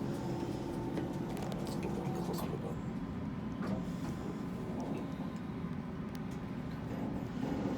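Kone elevator car travelling between floors, heard from inside the cab as a steady low rumble and hum, with a few faint ticks in the first couple of seconds.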